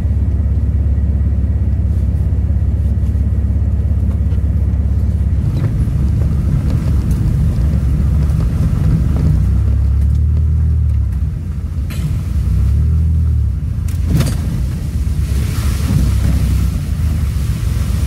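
AWD minivan driving slowly over a gravel and dirt forest track, heard from inside the cabin: a steady low rumble of engine and tyres that rises and falls as the van rolls over the bumps. Two sharp knocks come from the suspension or body, one about twelve seconds in and one about fourteen. Near the end there is a short stretch of louder hiss.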